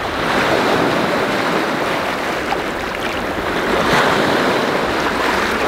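Small lake waves breaking and washing over a rocky shoreline, a steady rush of surf that swells about four seconds in as a wave breaks close by.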